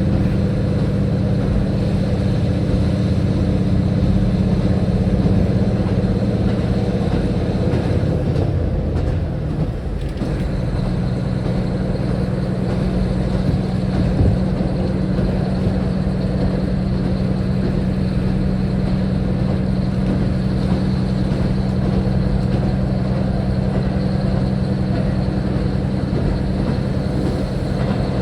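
Diesel railcar engine running steadily under way. Its note breaks and shifts to a new steady pitch about nine seconds in.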